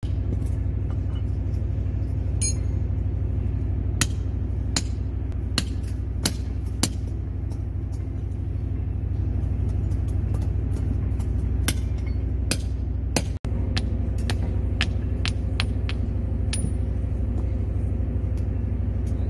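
Hammer striking a steel chisel to cut the copper windings off a scrap electric motor on a wooden block: sharp metallic strikes roughly every half second to a second, over a steady low rumble.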